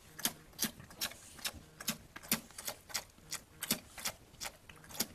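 A steady series of sharp taps or clicks, about three a second.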